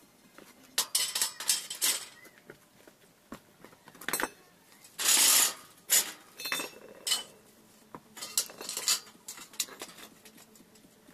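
Lengths of metal angle profile clinking and clattering as they are handled and laid down on concrete, with a string of sharp clanks and a louder half-second clatter about five seconds in.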